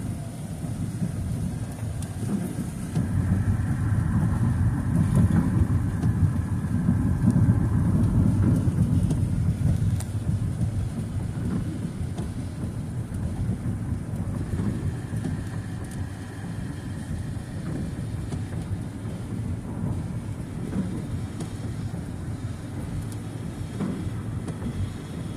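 A car driving on a rain-wet road: a steady low rumble of road and rain noise that swells a few seconds in and then eases off.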